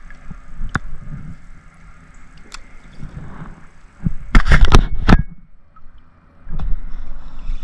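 Knocks and clatter of gear against a kayak, with water gurgling: single sharp knocks early on, a loud cluster of knocks about four to five seconds in, then a low rumble near the end.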